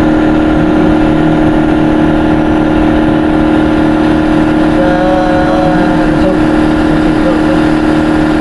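Loud, steady machine drone with a constant low hum that does not change.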